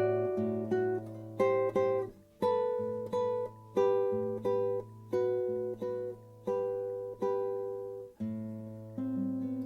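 Acoustic guitar playing a slow bossa nova tune: plucked chords, each one decaying, over a sustained low bass note, with a final chord about nine seconds in that is left to ring.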